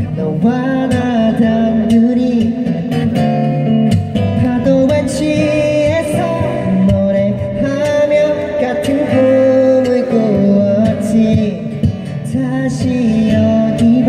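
Live acoustic performance: a singer singing a melody into a microphone, accompanied by strummed acoustic guitars.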